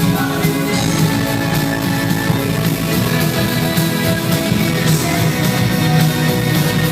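Live rock band playing amplified distorted guitars over heavy bass, with some singing, recorded close to a subwoofer so the low end is distorted.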